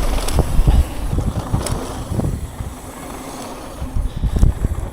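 Mountain bike rolling down a bumpy, wet dirt trail: wind rumble on the microphone with tyre noise and short knocks and rattles from the bike over bumps. It eases off about halfway through, then the knocks pick up again near the end.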